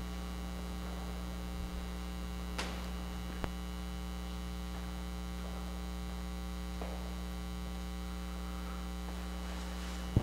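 Steady electrical mains hum with several overtones, with two faint short knocks a few seconds in.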